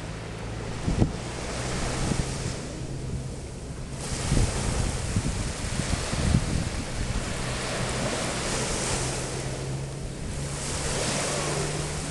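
Small waves breaking and washing up on a sandy beach, the surf swelling and ebbing every few seconds, with wind buffeting the microphone in low thumps.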